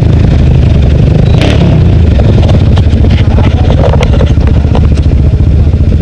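Off-road vehicle engine running steadily at low revs close to the microphone, a fast, even low chugging, with a few light clicks and rattles over it.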